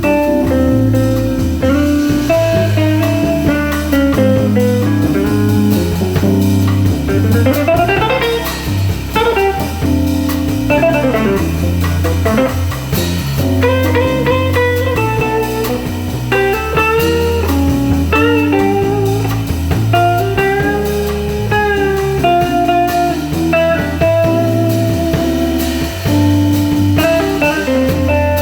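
Live jazz combo playing: a guitar carries a single-note melody with slides and bends, over keyboard chords and drums.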